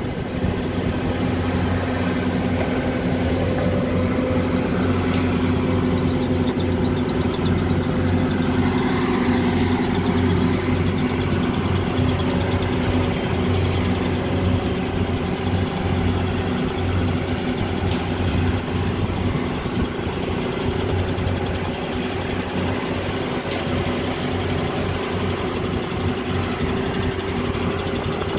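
Diesel engine of a Volvo EC210 BLC crawler excavator running steadily, working its hydraulics as it digs and swings to load a dump truck.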